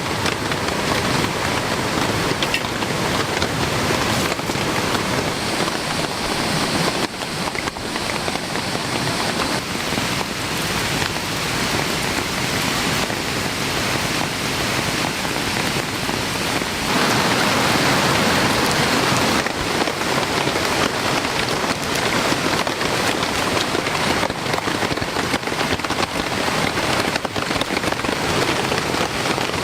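Heavy rain falling steadily, briefly heavier for a couple of seconds past the middle.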